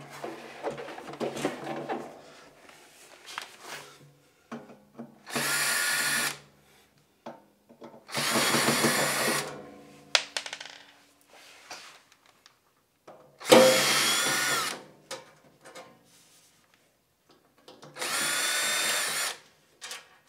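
Cordless drill/driver running in four short bursts of about a second each, backing out the screws of the compressor's side panel, with light handling clatter between runs.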